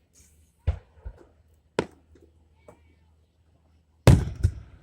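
Fireworks shells bursting in a series of sharp booms, irregularly spaced. The loudest two come close together near the end, followed by a rumbling tail.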